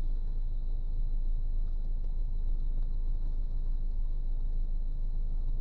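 Steady low rumble of a car idling, heard from inside its cabin, with a faint steady high-pitched tone above it.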